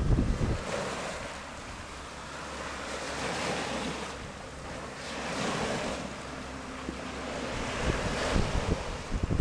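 Small waves breaking and washing up the sandy shore beside the hull of a beached boat, in washes that swell and fade every two to three seconds. Wind buffets the microphone in the first moment and again near the end.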